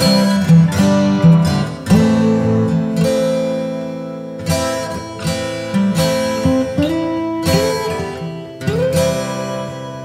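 Background music: an acoustic guitar picking and strumming notes, with a couple of notes sliding up in pitch near the end.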